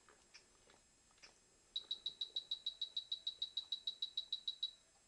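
LEGO Mindstorms NXT robot's brick speaker sounding a rapid run of short high beeps, about six a second for about three seconds, starting a little under two seconds in. A few faint clicks come before it.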